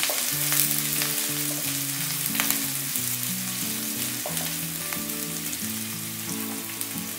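Chopped onions sizzling in hot oil with cumin and mustard seeds in a wok, stirred with a wooden spatula that scrapes and taps the pan a few times. Soft background music of held notes plays underneath.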